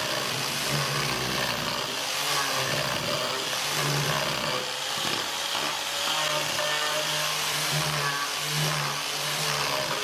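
Electric angle grinder with a sanding pad running and sanding the edge of a pine board: a steady motor whine over the rasp of abrasive on wood, with a low hum that comes and goes as the disc works along the edge.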